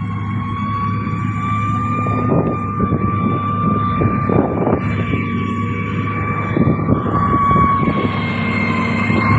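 Heavy diesel road-construction machinery running steadily, a deep engine drone under a steady high whine.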